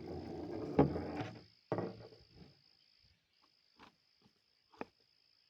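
Steady high-pitched insect trill, with a rumbling rustle over the first second and a half and a few sharp knocks and clicks.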